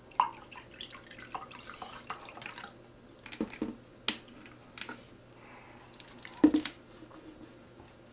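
Orange juice poured from a plastic bottle into a cup, splashing and trickling for a couple of seconds. Then a few sharp clicks as the plastic screw cap is turned back on, and a louder knock about six and a half seconds in as the bottle is set down on the table.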